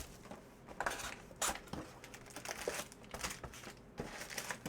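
Plastic wrapping on a box of trading card packs being crinkled and torn open, in short rustling bursts.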